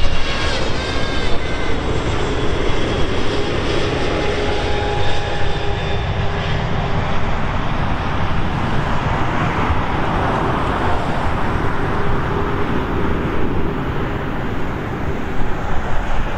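Boeing 777-200LR on final approach passing low overhead, its GE90 turbofan engines sounding as a loud, steady jet roar. High whining fan tones ride on the roar early and fade out about six seconds in.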